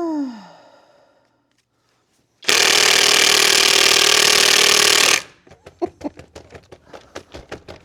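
Kobalt cordless impact wrench hammering hard for about three seconds on a stuck lug nut that does not break loose. Afterwards comes a run of light clicks and rattles. A falling whine fades away at the very start.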